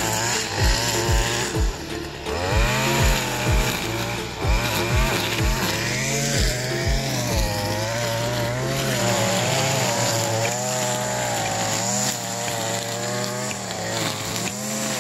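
Small gas engine of a power tool such as a brush cutter running, its revs rising and falling, over background music with a steady beat.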